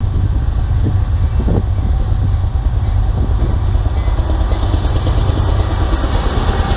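BNSF train passing at trackside, a loud steady low rumble.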